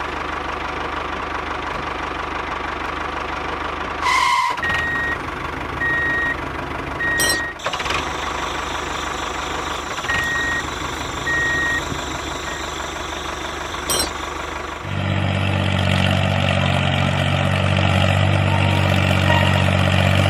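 A heavy vehicle engine runs steadily. Its reversing alarm beeps about once a second for a stretch in the first half. About three-quarters of the way through, a louder, deeper engine sound takes over.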